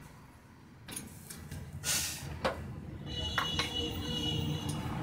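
Metal parts of a chalk-moulding machine being worked: a few knocks and a short scrape, then from about three seconds a steady high-pitched squeal over a low hum.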